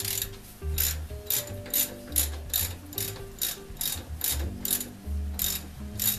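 Socket ratchet wrench being swung back and forth, clicking in short bursts about two or three times a second as it loosens the steady rest's clamp bolt on a lathe.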